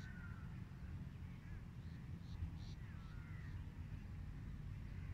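Birds calling over a steady low rumble: short repeated calls, a pair of them in the middle, and thin whistled chirps that slide in pitch.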